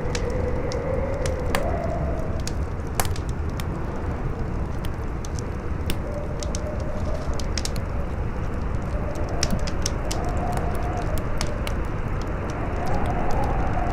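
Wind howling, its moaning pitch slowly rising and falling, over a fire crackling with frequent sharp pops.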